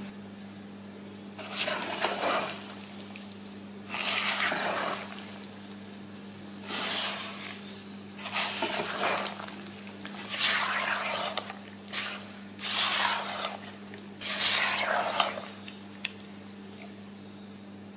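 Silicone spatula stirring granulated sugar into chopped raw strawberries in a nonstick pot: about eight separate scraping strokes with short pauses between. A steady low electrical hum runs underneath.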